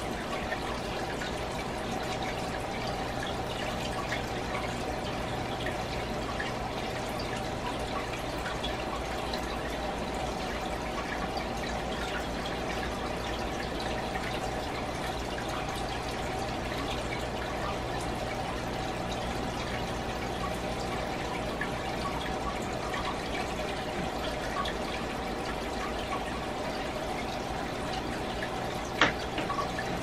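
Home fish aquarium's water running steadily over a steady low hum. There is one sharp click near the end.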